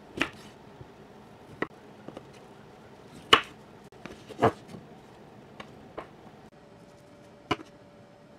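Santoku knife chopping carrots on a wooden cutting board: about eight separate, irregularly spaced knocks of the blade on the board, the loudest about three seconds in.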